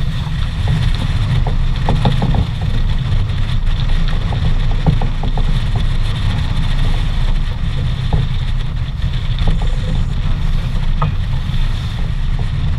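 Wind buffeting the microphone in a steady low rumble, over the rush of water foaming along the hull of a heeled sailboat under way.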